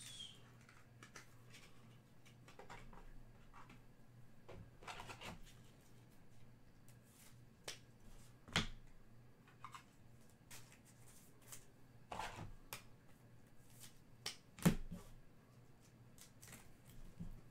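Trading cards and their packaging being handled on a table: faint, scattered rustles and light clicks, with a few sharper clicks about halfway through and later on.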